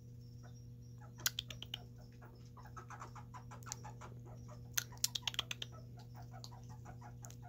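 Red squirrels eating seeds and peanuts: sharp crunching clicks of teeth cracking shells, in clusters about a second in and around five seconds in, with a quick run of softer chewing ticks through the second half.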